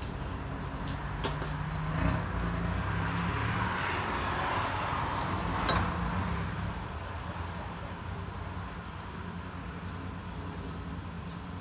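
A few light metal clinks as a motorcycle crankshaft assembly is handled and lifted off a press bed, over a steady low hum. In the middle a broad rush of noise swells and fades.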